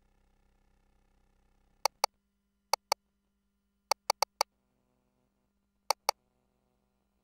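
Ultrasound machine console clicking: sharp single clicks, mostly in quick pairs, with two pairs, then a run of four, then another pair. These are the key presses that set measurement calipers on the fetal skull for the biparietal diameter. A faint steady hum sits under the opening seconds until the first click.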